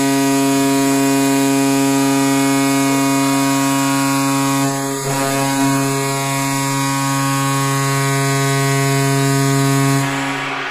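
Recorded NHL arena goal horn blowing one long, steady, low blast that signals a goal, cutting off sharply at the very end.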